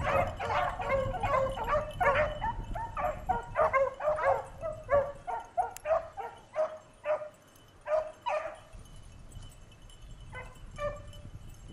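A pack of beagles baying as they run a rabbit's scent trail. Many voices overlap at first, then thin out after about eight seconds to a couple of scattered bays near the end.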